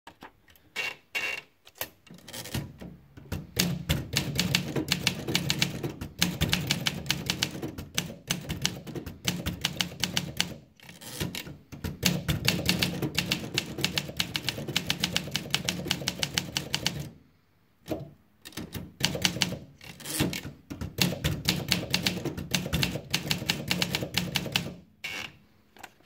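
Olympia SM7 Deluxe manual portable typewriter: a few clicks near the start as the paper is wound in, then fast typing, a rapid run of sharp keystrokes broken by short pauses between lines.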